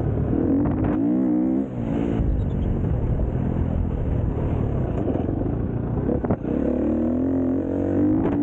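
A motor vehicle engine running and being revved, its pitch rising and falling again and again, with brief drops in loudness near the start and about two-thirds of the way through.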